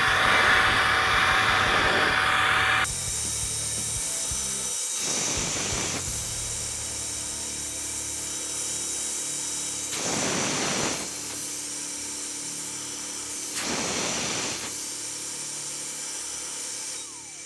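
SuperFlow 1020 flow bench motors running, blowing air out through the exhaust port of a CNC-ported 24-valve Cummins cylinder head during a flow test. The whirring rush is loud at first and drops to a lower steady level about three seconds in. It then swells briefly three times.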